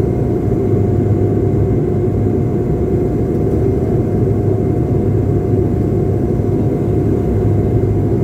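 Cabin noise of a high-wing turboprop airliner on final approach with its landing gear down: a steady, unbroken drone of engines and airflow, with a low hum and a constant mid-pitched tone running through it.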